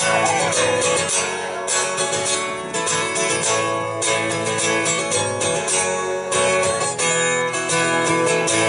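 Acoustic guitar strummed in a steady rhythm, an instrumental stretch of country playing with no singing.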